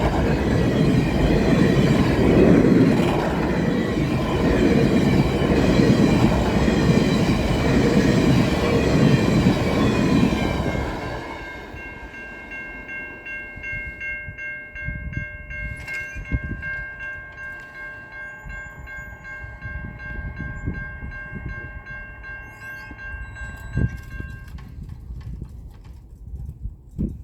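VIA Rail passenger train with F40PH-2D locomotives passing close by: a loud rush of wheel and engine noise for about ten seconds, then fading as it moves away. From about twelve seconds in, the lead locomotive's Nathan K1L13 horn sounds in the distance as one long steady chord for about thirteen seconds, then stops suddenly, with its 1L bell overblowing to give a weird, off-sounding tone.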